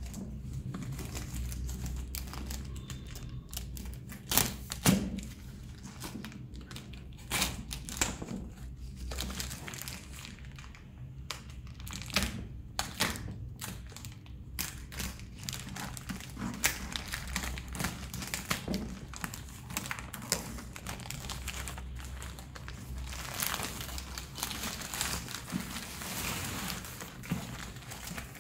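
Plastic courier mailer bag crinkling and tearing as it is pulled open by hand, with many sharp crackles and a denser stretch of rustling near the end.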